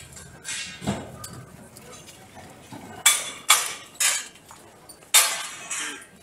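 A few sharp knocks and clinks, irregularly spaced: one about a second in, three close together past the middle and one more near the end.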